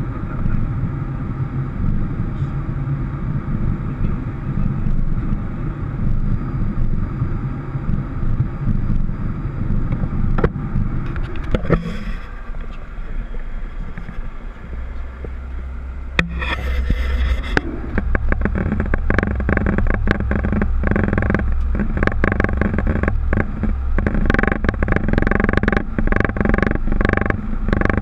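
Boeing 737 cockpit noise: a steady engine and airflow drone. About halfway through, a deeper rumble comes in, with a brief hiss just after. Then rapid, irregular knocks and rattles follow as the airliner rolls over the pavement.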